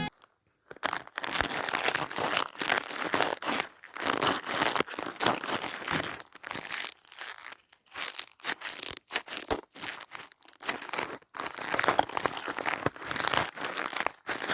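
Crinkling and crumpling of a homemade fidget toy being squeezed and worked in the hands, in quick irregular bursts with brief pauses.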